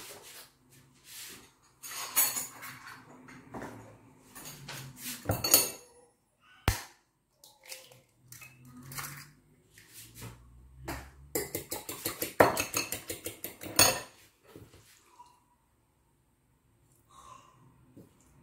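A spoon clinking and scraping against a dish in irregular bursts while scooping out meat pie filling, with a quick run of rapid taps about twelve seconds in.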